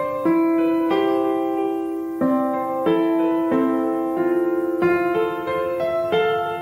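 Background music: a gentle piano melody, one note or chord struck about every half second to second and left to ring.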